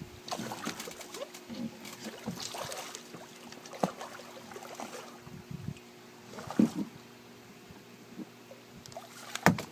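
Sounds of handling in a small boat: scattered knocks and splashy rustles, with sharp knocks about four seconds in, past six and a half seconds and near the end, over a steady low hum.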